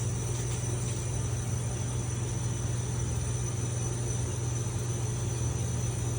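Steady background hum with a constant high-pitched tone above it, unchanging and with no distinct knocks or clicks.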